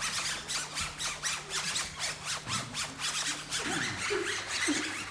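Rhythmic scratchy rubbing strokes, about four to five a second, made by performers as part of a percussive sound piece. A few short sliding tones join near the end.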